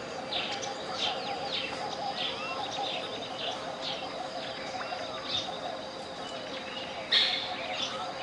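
Tropical jungle birds chirping and calling in short repeated notes, with one louder call about seven seconds in, over a steady 528 Hz pure tone.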